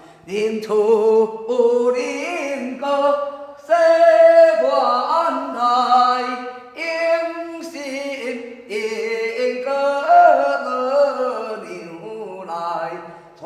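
A woman singing solo without accompaniment in a chant-like, flowing melody. Her long held notes slide up and down in pitch across a wide range.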